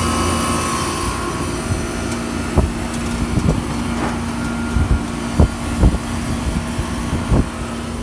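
Outdoor unit of an LG split-type air conditioner running, a steady hum with a constant tone from its compressor and fan, drawing about 23 amps. Several short, sharp knocks come in the second half.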